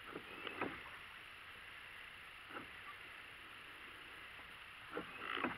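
A few soft, short knocks and bumps on the plastic hull of a paddleboat, about half a second in, near the middle and twice near the end, over a faint steady hiss.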